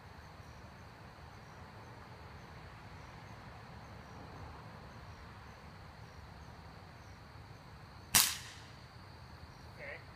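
Crosman Quest break-barrel spring-piston air rifle fired once: a single sharp crack about eight seconds in. Crickets chirr faintly and steadily throughout.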